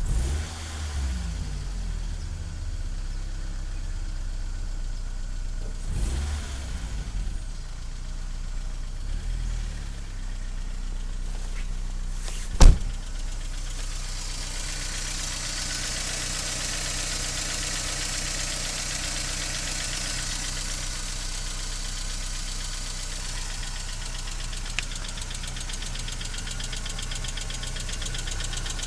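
BMW E46 318i four-cylinder engine running cold with a rapid metallic rattle from worn hydraulic lifters. It is blipped three times in the first ten seconds, there is one sharp knock about twelve seconds in, and then it settles to idle with the clatter louder and brighter.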